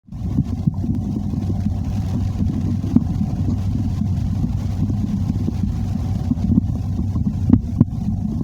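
Human stomach growling and gurgling: a continuous low rumble full of small crackling gurgles, with a few sharper pops, one about three seconds in and two near the end.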